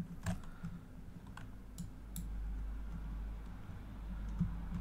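A few scattered clicks from a computer mouse and keyboard, over a low steady hum.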